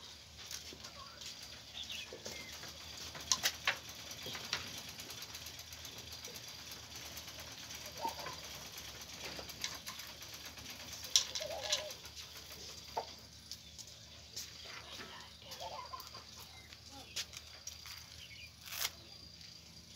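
Pencil scratching on paper in short, quick strokes, with small clicks of the lead. A few faint short bird calls come and go in the background.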